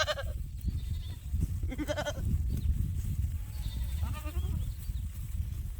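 Boer goats bleating: three short bleats, the first loudest, one about two seconds in and a fainter one about four seconds in, over a steady low rumble.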